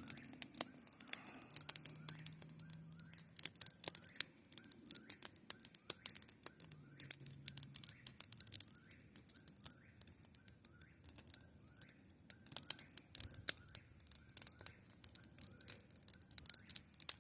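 Campfire crackling under a grill: irregular sharp snaps and pops, with a steady high-pitched trill behind them.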